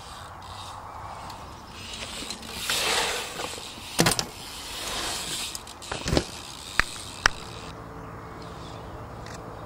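BMX bike riding on concrete: tyres rolling past in swells, with several sharp knocks of the bike on the concrete about halfway through.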